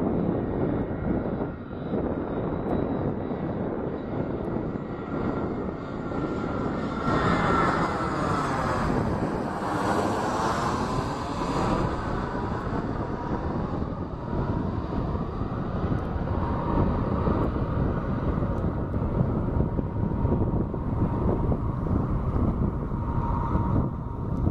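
Airbus A320 airliner on final approach with its landing gear down, jet engines running steadily. The sound swells to its fullest and brightest as the plane passes overhead about ten seconds in, with a sweeping, phasing whoosh, then grows duller as it flies away.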